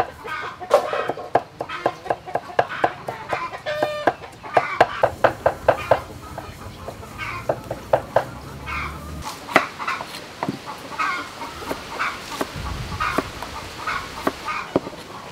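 Knife chopping vegetables on a wooden cutting board, a quick run of sharp strokes, with chickens clucking in the background.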